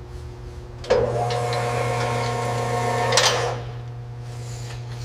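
A motorised workshop tool whirs steadily for about two seconds over a constant low hum, then cuts off with a short clatter. It is heard during teardown of the car.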